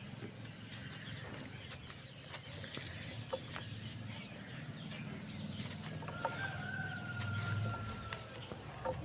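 Chickens clucking, with scattered small crackles of dry crumbling dirt or cement and a thin held tone for about two seconds near the end.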